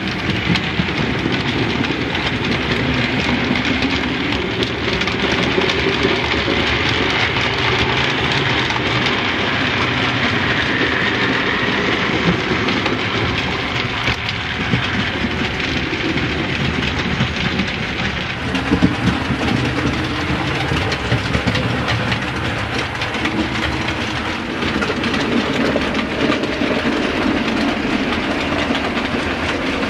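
OO gauge model train running on the track: a steady rumble with fine rapid clatter from the wheels on the rails. The running sound changes character about two-thirds of the way through.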